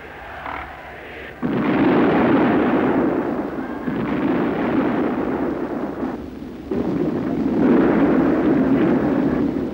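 Two heavy explosions on an old newsreel soundtrack: a sudden blast about a second and a half in, then a second one near seven seconds, each followed by several seconds of rumbling.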